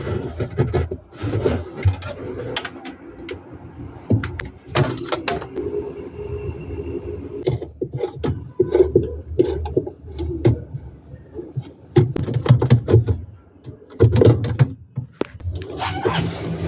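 Irregular knocking, clicking and scraping around a top-loading washing machine's agitator, where a cord is caught.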